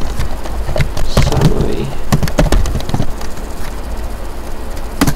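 Computer keyboard keys clicking in quick irregular runs as a database name and semicolon are typed, with one louder keystroke near the end, the Enter key sending the command.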